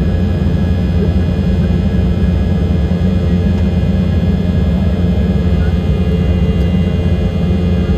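Cabin noise inside an Embraer 195 airliner: its General Electric CF34 turbofan engines running steadily, a deep rumble with a set of steady whining tones above it.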